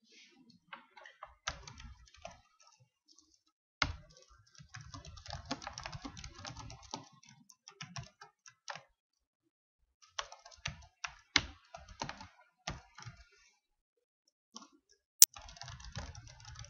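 Computer keyboard typing in bursts of quick keystrokes with short pauses between, and one sharp, louder click about fifteen seconds in.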